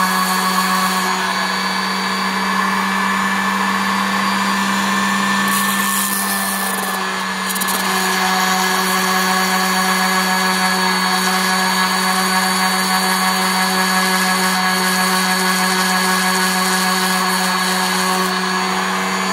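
Ridgid 18V cordless orbital sander running steadily at its highest speed setting (6), with a wood block held against the spinning sanding pad to flatten its rounded end. There is a brief dip in level about seven seconds in.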